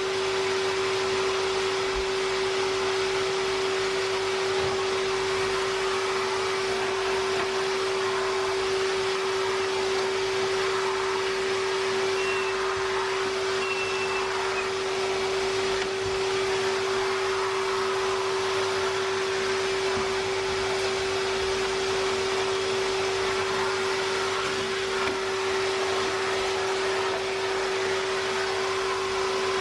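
Red wet-and-dry canister vacuum running steadily with a constant whine as its hose is worked over the couch and the floorboards.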